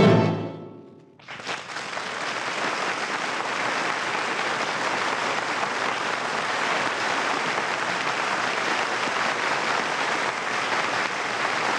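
An orchestral chord dies away in the first second, then steady applause follows.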